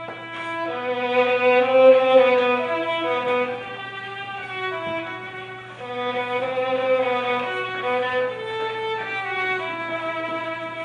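Solo violin playing a slow melody of held notes.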